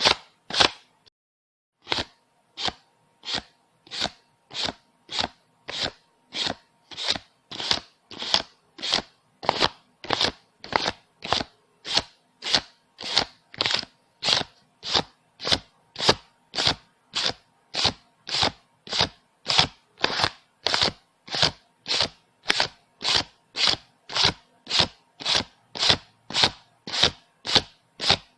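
Paper banknotes being counted one at a time, each bill making a short crisp swish in a steady rhythm of about one and a half a second, with a brief pause about a second in.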